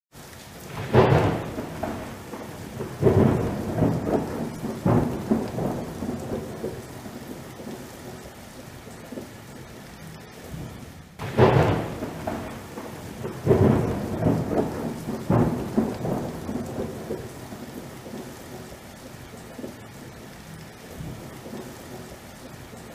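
Thunderstorm: a sharp thunderclap about a second in and another about eleven seconds in, each followed by rolling rumbles that fade away, over a steady hiss of rain.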